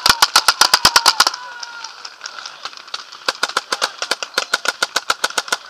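Paintball markers firing in rapid strings of sharp pops, about ten shots a second. A loud close volley lasts for the first second or so. After a short lull, a steady, somewhat quieter stream of fire starts about three seconds in.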